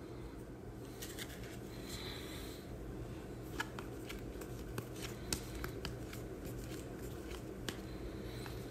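Baseball trading cards handled and slid against one another, with scattered light clicks.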